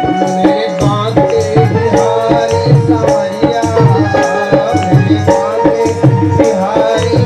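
Harmonium playing a stepping melody over a steady tabla rhythm: an instrumental interlude between the sung lines of a devotional bhajan.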